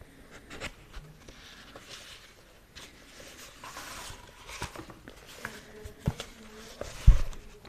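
Close-miked ASMR sounds: scattered soft clicks and light rubbing, with two sharper low thumps near the end.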